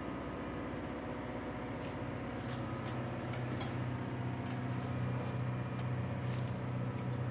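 Steady low hum with a few faint clicks; the hum grows stronger about two seconds in.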